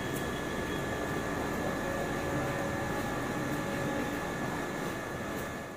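Steady rushing background noise with a faint, steady high tone running through it, fading near the end.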